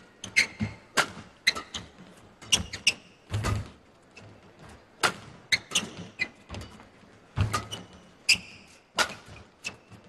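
Badminton rally: rackets striking the shuttlecock in a quick series of sharp hits, some under a second apart. Court shoes squeak and land with thuds on the court mat between the hits.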